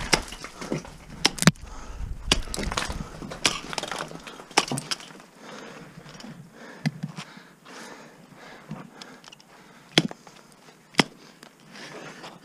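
Technical ice tools being swung into steep ice: irregular sharp strikes of the picks with breaking, crunching ice, most of them in the first few seconds and two more near the end.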